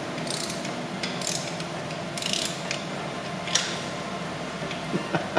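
Ratchet wrench clicking in about four short runs as it is swung back and forth on a bolt on the engine block.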